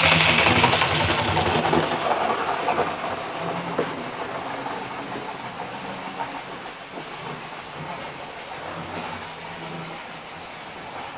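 Model train running on the layout, loudest at the start and fading steadily as it moves away, its motor hum and wheel noise growing fainter.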